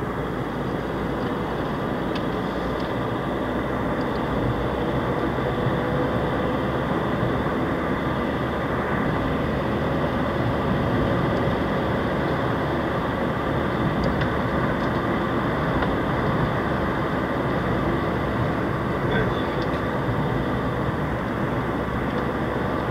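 Car driving along a paved road, heard from inside the cabin: a steady rush of engine and tyre noise that grows a little louder over the first few seconds as the car picks up speed.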